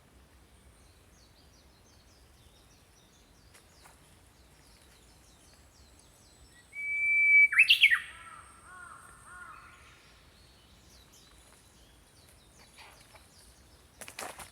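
Small songbirds twittering faintly. About seven seconds in, one louder bird sings a whistled phrase: a held note, then a quick flourish and a short trailing run of notes. A few soft knocks come near the end.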